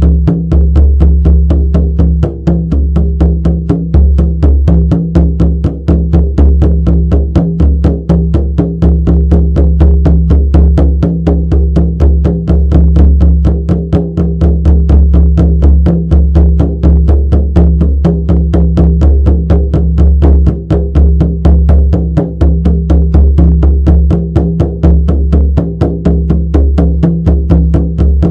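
Shamanic frame drum beaten in a fast, steady, unbroken rhythm, each stroke's deep boom ringing on into the next.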